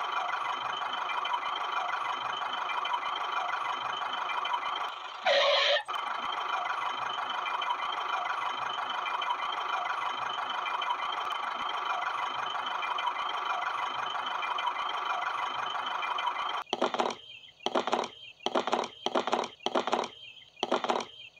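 Small electric motor of a toy tractor running steadily with a whirring drone. About five seconds in there is one brief, louder squeal. Near the end the drone cuts in and out in short bursts.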